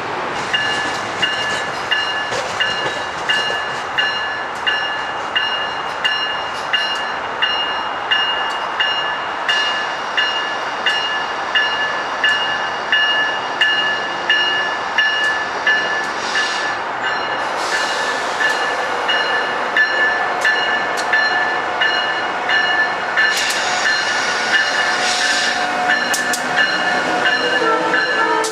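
A train's warning bell ringing steadily, about three strikes every two seconds, over the rumble of a train in the station. A brief high hiss breaks in twice in the second half.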